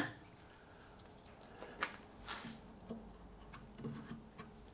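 Faint scattered knocks and rustles of parts being handled, with one sharp click at the very start.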